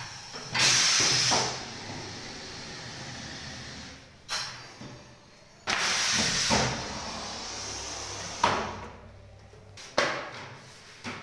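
Pneumatic screen-printing machine cycling: two loud hisses of compressed air as its air cylinders work, each fading into a longer, softer hiss, with sharp mechanical knocks between them.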